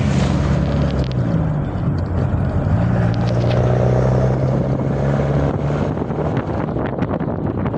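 An engine running steadily with a low hum, its pitch dipping briefly and rising again about two seconds in.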